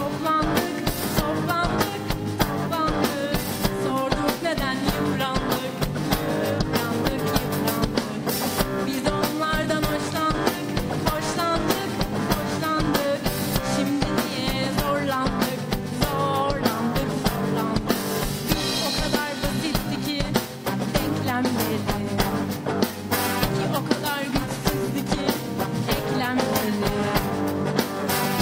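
A woman singing a pop-rock song with a live band, with drum kit and electric guitar playing behind her voice.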